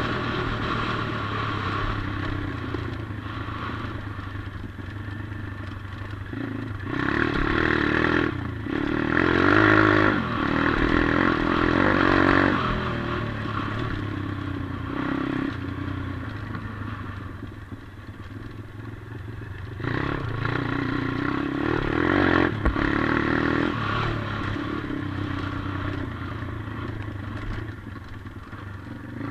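A 140cc pit bike's single-cylinder four-stroke engine runs under way on a dirt track. The throttle is opened hard for two stretches, about a quarter of the way in and again about two-thirds through, with a brief lift off near the start of the first and quieter rolling in between.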